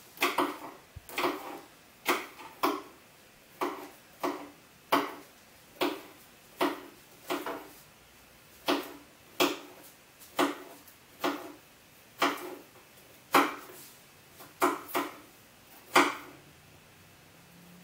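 Knives chopping bell peppers, the blades knocking on the cutting surface in an uneven rhythm of about one or two sharp knocks a second. The knocks stop near the end.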